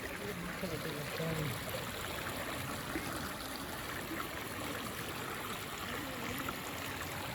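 Steady rush of running water flowing through trout ponds, with faint voices in the distance.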